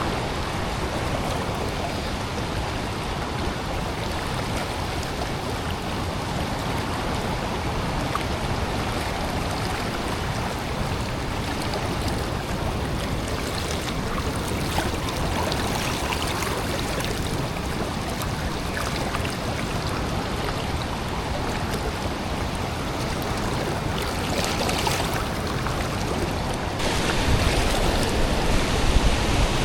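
River water rushing and splashing around a drifting boat, a steady, even noise. Near the end a deeper rumble comes in.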